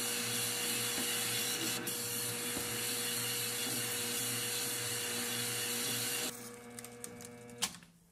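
Metal lathe running with a parting tool cutting a groove into a large aluminium blank, a steady hissing cut over a steady motor tone and hum. About six seconds in the lathe is switched off and the sound falls away as the spindle coasts down, with a single click shortly before the end.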